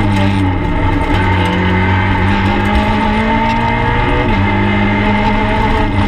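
Peugeot 208 R2B rally car's four-cylinder engine pulling hard under full throttle, heard from inside the stripped cabin. The revs climb slowly, drop sharply about four seconds in, then climb again.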